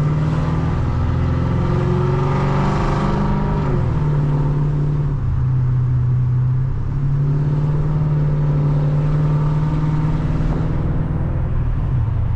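Chrysler 300C's 5.7L HEMI V8 engine running on the road, rising in pitch under acceleration about two to three seconds in, then settling to a steady drone.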